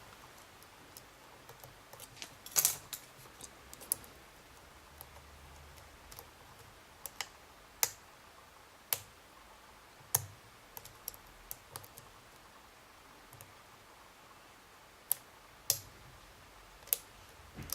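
Lock pick and tension tool working the pins of a pin-tumbler challenge lock fitted with security pins: irregular sharp metallic clicks and taps as pins are lifted and set, the loudest about two and a half seconds in.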